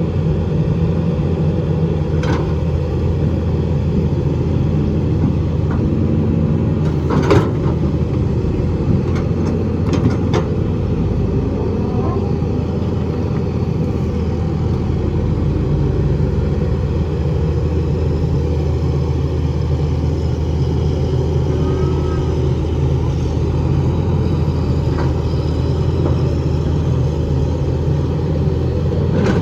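Diesel engine of a Hitachi EX200 hydraulic excavator running steadily under working load, with a few sharp metallic knocks, the loudest about seven seconds in.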